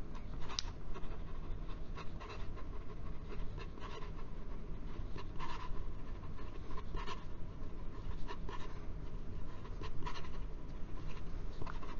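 Fine nib of a Jinhao 997 fountain pen scratching over lined notebook paper in quick cursive strokes: irregular short scratchy swishes, one or two a second.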